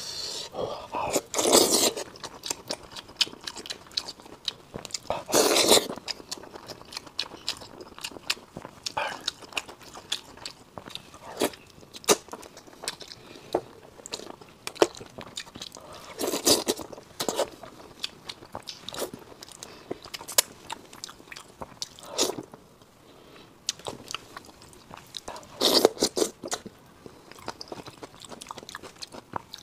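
Close-miked eating: chewing and sucking meat off bones from a braised dish in sauce, with many small wet mouth clicks and four louder, noisy bursts spread through the stretch.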